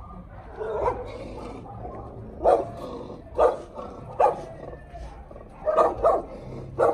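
A dog barking, about seven short barks at irregular intervals, two in quick succession near the end.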